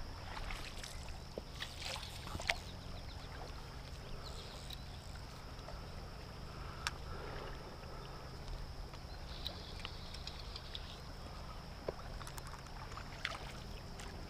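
Steady rush of river water around a wading angler's legs, picked up on a GoPro, with a handful of sharp clicks scattered through it.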